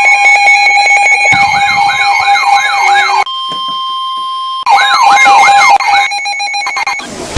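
Electronic siren and alert tones: a held, rather harsh two-tone alarm, then a fast whooping siren rising about three times a second over it, broken about three seconds in by a steady single alert tone, before the whooping returns.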